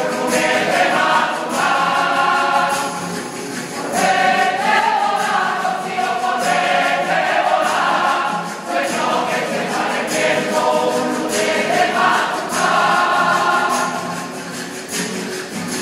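A rociero choir of women's and men's voices singing together to strummed guitars, growing quieter near the end.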